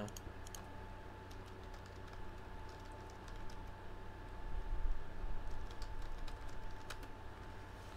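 Typing on a computer keyboard: irregular light key clicks, over a faint steady hum.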